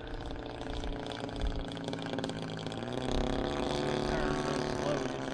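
Desert Aircraft DA-120 twin-cylinder two-stroke gas engine of a large RC aerobatic plane running in flight. Its pitch rises a little about three seconds in.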